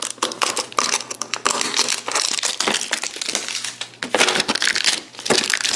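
Packaging crinkling, crackling and tearing as it is wrestled open by hand, in a dense run of crackles with a short lull near the end.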